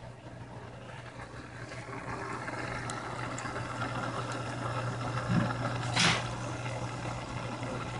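Cobalt MJ-1200 aquarium powerhead running underwater, a steady low motor hum under the fizz of air bubbles drawn in through its venturi air line. There is a brief knock about six seconds in.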